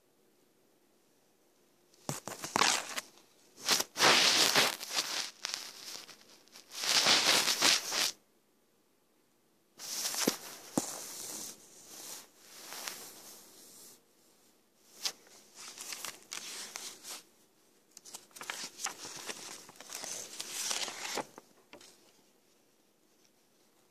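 Paper notebook pages being turned and handled, rustling in two stretches of several seconds with a short pause between.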